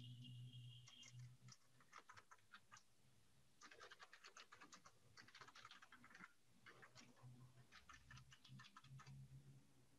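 Faint computer keyboard typing in several short runs of keystrokes, with pauses between them.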